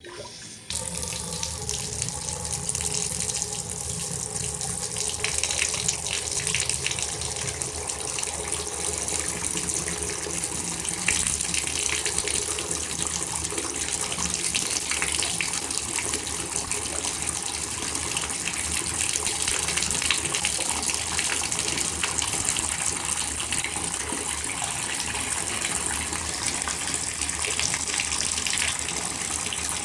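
Bathtub faucet turned on: a brief quieter flow, then under a second in the water jumps to a full stream and keeps running steadily into the tub.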